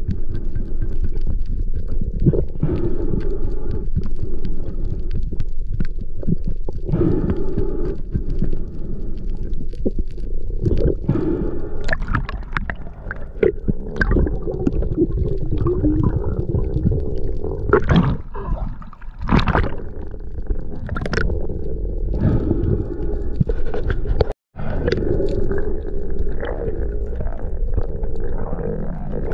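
Underwater sound picked up by a camera in its waterproof housing: a dense, muffled low rumble of water movement with bubbling and scattered clicks and knocks as a speared barracuda is handled on the spear shaft.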